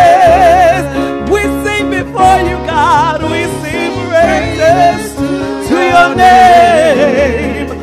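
Women singing a gospel praise song, the lead voice holding long notes with wide vibrato and breaking into quick melismatic runs, over instrumental accompaniment.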